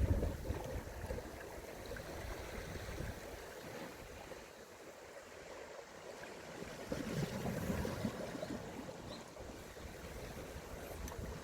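Seawater lapping and sloshing, with gusts of wind buffeting the microphone near the start and again about two-thirds of the way in.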